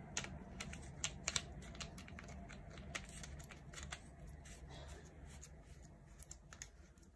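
Irregular light clicks, taps and small scrapes of handling as a CR123 battery is loaded into a CNC metal replica laser aiming device, denser in the first four seconds.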